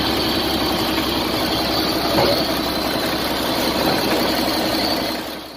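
Iveco Tector truck diesel engine idling steadily; the sound fades out near the end.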